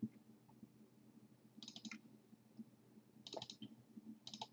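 Computer mouse clicks in quick clusters, as when double-clicking through folders in a file dialog: about two seconds in, again past three seconds, and near the end. A faint steady low hum lies underneath.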